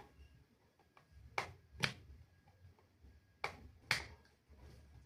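Sharp clicks of plastic parts of a vlogging kit being handled and fitted together, in two pairs about half a second apart: one pair near a second and a half in, the other about two seconds later.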